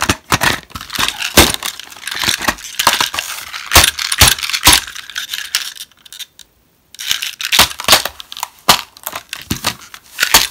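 Stiff plastic blister packaging crackling and clicking as it is handled and pried at, with sharp knocks of a toy engine hitting it. There is a brief gap of about a second roughly two-thirds of the way through.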